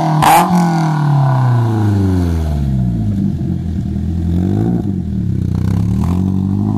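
Vauxhall Corsa C 1.2 Twinport four-cylinder petrol engine, its revs falling over the first few seconds and then settling into a steady lower drone. A short clatter comes just after the start.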